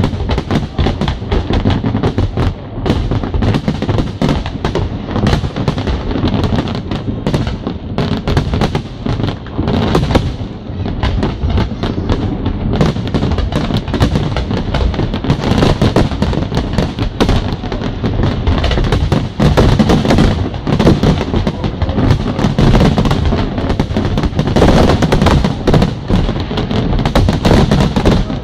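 Aerial fireworks display: a dense, continuous barrage of overlapping shell bursts, bangs and crackles, getting louder in the second half.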